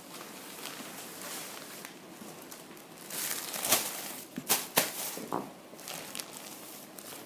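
Rustling handling noise of packaging and cloth, with a cluster of sharp crinkles and clicks in the middle.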